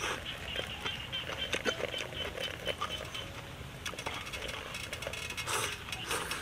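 Noodles slurped from a small bowl, with light clicks of chopsticks against bowls and the metal hotpot.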